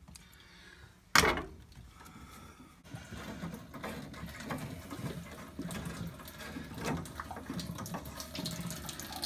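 A sharp knock about a second in, then leftover water trickling and splashing out of an Ideal Logic combi boiler's pipework as its flow turbine is undone.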